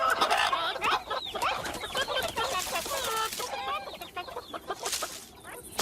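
Cartoon character vocal effects: quick, clucking, squawking chatter made of short gliding calls, mixed with sharp clicks, thinning out toward the end. A sharp thump lands right at the end.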